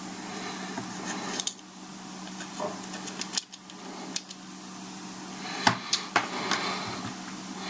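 Plastic opening tool scraping and clicking against the stainless steel case of an Apple Watch while scraping off old adhesive: a scattering of sharp little ticks and taps with light scrapes between them, the loudest a little past the middle.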